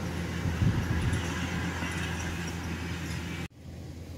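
Kubota DC-105 rice combine harvester running steadily as it cuts through the crop, a constant diesel drone with a low hum. The sound cuts off abruptly about three and a half seconds in, leaving only faint, even outdoor noise.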